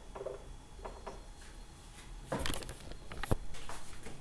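Marker writing on a whiteboard: faint short scratchy strokes, then a cluster of sharper scrapes and clicks from about two to three and a half seconds in.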